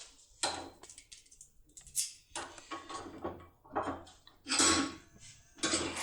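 Irregular clicks and clatter of small hard objects, such as metal lock tools, being handled and set down, with the loudest knock a little past four and a half seconds in.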